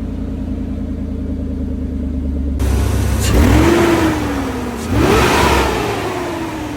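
Chevrolet Silverado engine with its stock intake, idling, then revved twice in quick blips: each rises sharply and falls slowly back toward idle. About two and a half seconds in, the sound changes abruptly.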